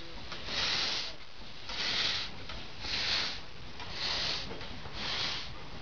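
The 1936 German-built narrow gauge steam locomotive ELF pulling away, its exhaust coming as five hissing chuffs about one a second, the beat quickening slightly. Steam blows from the cylinders as it starts.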